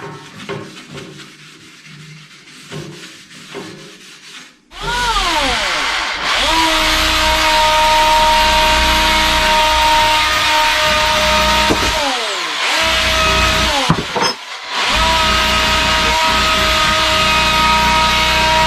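Electric power tool running at a steady speed, its pitch falling as it spins down when switched off near 12 seconds and again near 14 seconds, starting up again each time. Quieter scraping and clicking come before the tool first starts, about 5 seconds in.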